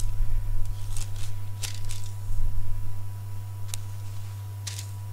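Several short paper rustles, about six, as pages are handled and turned at a lectern, over a steady low electrical hum from the sound system.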